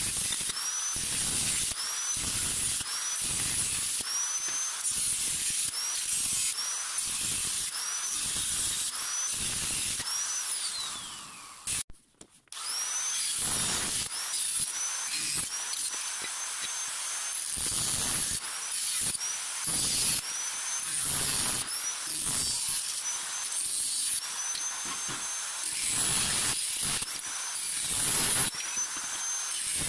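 Electric angle grinder with a cut-off disc making short, repeated cuts into thin steel, roughly one a second, its high whine dipping under load with each cut. About ten seconds in it spins down with a long falling whine and cuts off briefly, then the cutting resumes.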